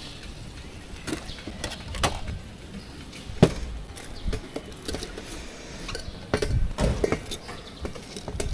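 Scattered clicks and knocks of cooking utensils and dishes, with one sharper knock about three and a half seconds in, over a low background rumble.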